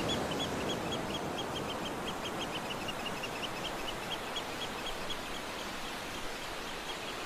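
Outdoor ambience with a small creature chirping rapidly and evenly, about five short high chirps a second, over a faint steady hiss.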